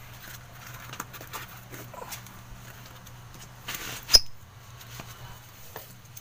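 Rustling and small clicks of a basketball sneaker being laced up by hand, over a steady low hum, with one sharp click a little past the middle as the loudest sound.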